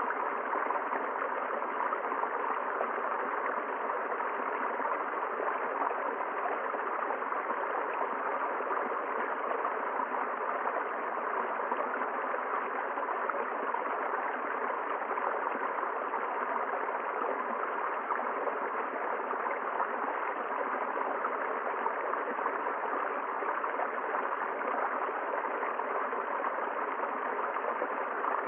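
A river's water rushing and gurgling over rocks in a steady, even stream.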